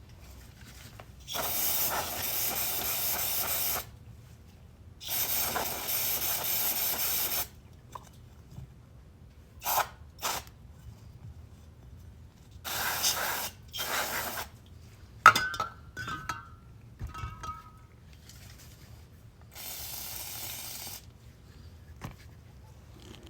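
Aerosol cleaner hissing in bursts into a carburetor's passages: two long sprays of a couple of seconds each, then shorter spurts, with a fainter spray near the end. A sharp click and brief squeaks come about two thirds of the way through.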